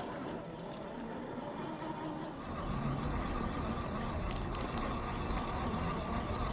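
Brushed 540 electric motor and drivetrain of a 1/10-scale RC crawler running as it drives off-road. The hum gets louder a little over two seconds in, with a steady whine and more low rumble from then on.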